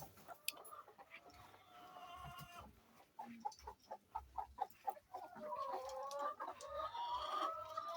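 A flock of laying hens clucking and calling. About halfway through there is a quick run of short clucks, and near the end there are longer drawn-out calls.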